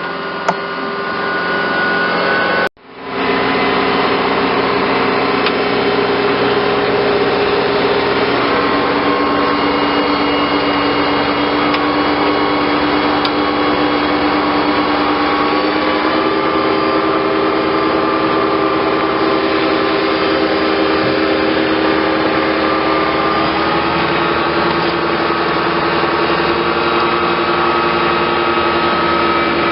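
Engine of farm machinery running steadily, its pitch stepping slightly up or down a few times. The sound drops out briefly about three seconds in, then carries on.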